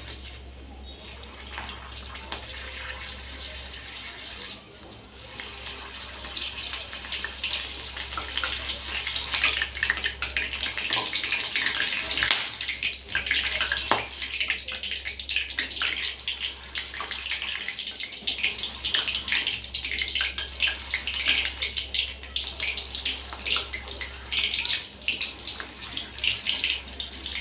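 Slit green chillies deep-frying in hot oil in a steel kadhai, a steady sizzle with dense crackling that grows louder after the first several seconds. The chillies are slit so they do not burst in the oil.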